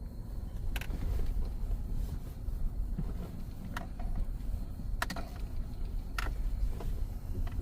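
A vehicle rolling slowly along a newly cleared path, a steady low rumble, with four short sharp clicks or snaps spread through it.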